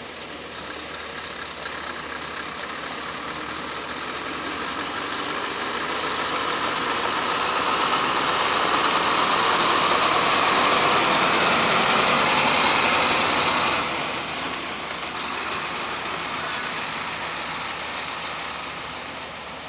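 Scania heavy truck's diesel engine running as the loaded truck drives past, growing steadily louder to its loudest about halfway through, then dropping off abruptly about fourteen seconds in.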